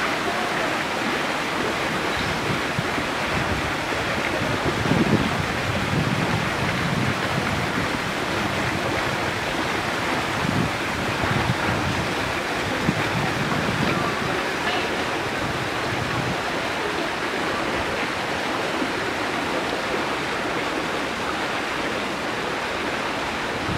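Steady rush of running water, like a waterfall spilling into a pool, with a few brief low rumbles about five and eleven seconds in.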